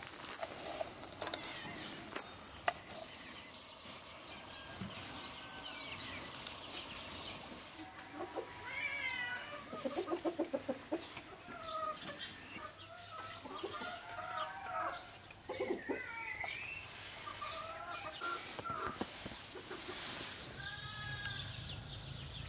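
Chickens clucking and calling, with a quick run of clucks about ten seconds in.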